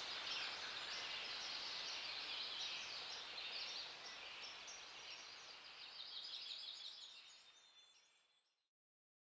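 A chorus of many small birds chirping over a faint outdoor hush, fading away near the end.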